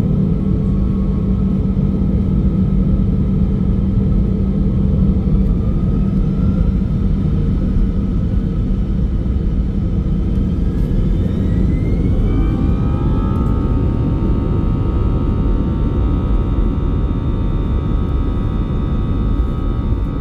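Airbus A320 cabin noise on the ground: a steady rumble of the twin jet engines and the airframe. About two-thirds of the way through, an engine whine rises in pitch and settles into several steady high tones as the engines spool up.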